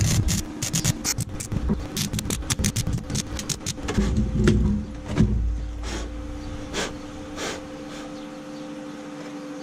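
Electric welding on the rusted steel bodywork of a Mercedes W123: fast crackling in short stitch-weld bursts for the first few seconds, then only a few separate short bursts. A steady hum runs underneath.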